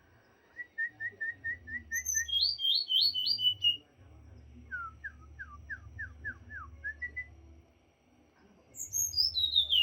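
A morae mini songbird singing in bursts of whistled notes: a row of short repeated notes, then a quick run of higher notes, a row of short downslurred notes, and near the end a long falling whistle.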